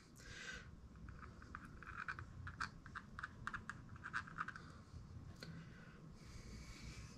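Faint run of light clicks and small scrapes from hand tools and small parts being handled, several clicks a second for a few seconds.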